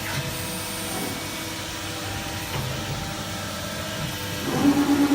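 Steady machine hum with a few fixed tones, typical of an electro-hydraulic press brake's pump running. About four and a half seconds in, a louder pulsing low tone rises briefly.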